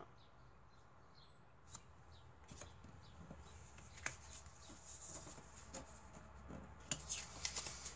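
Faint rustling and small clicks of craft packaging being handled, with a sharper click about four seconds in and a cluster of handling noises near the end.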